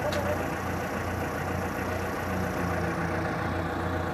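Cat forklift engine idling steadily with a low, even hum.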